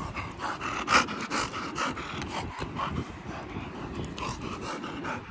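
A dog panting in quick, even breaths, about three a second, tired after a long run.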